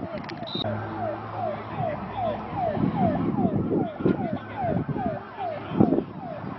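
An emergency-vehicle siren sounding in a fast yelp, a short falling sweep repeated about two and a half times a second, with a steady low hum beneath it.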